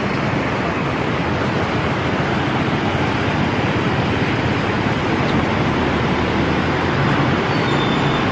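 Steady rushing of a muddy floodwater torrent pouring under and against a bridge.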